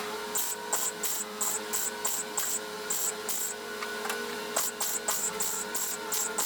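Background music with a steady, high, hi-hat-like beat of about three pulses a second, pausing briefly midway.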